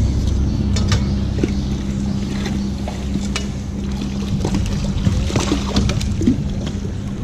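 Hooked channel catfish splashing at the surface beside a kayak while a landing net is worked around it, with scattered knocks and clatter against the hull over a steady low hum.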